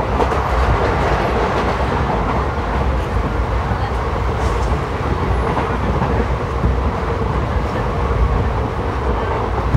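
ICF passenger coach running along the track: a steady rumble of wheels on rails, heard from inside the coach.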